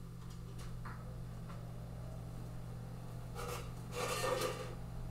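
A glass canning jar being lifted out of a boiling-water-bath canner with a jar lifter: a few faint light clicks, then a brief splash and rattle of water and metal about three and a half seconds in, over a steady low hum.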